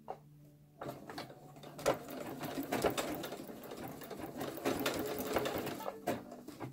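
Singer Quantum Stylist 9960 computerized sewing machine sewing an overlock (zigzag) stitch with presser foot C through an elastic waistband. It starts about a second in, runs steadily with rapid needle ticking, and stops near the end.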